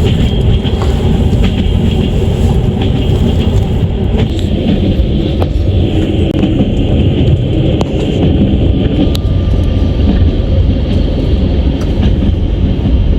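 Passenger train running at speed: a steady heavy rumble of wheels on rails, with scattered sharp knocks as the wheels pass over rail joints.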